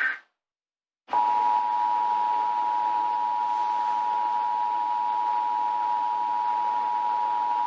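Emergency Alert System broadcast test: the last SAME header data burst, a brief warbling digital chirp, ends at the start. About a second in, the EAS two-tone attention signal (853 Hz and 960 Hz sounded together) begins and holds steady over a background hiss, announcing the alert message to follow.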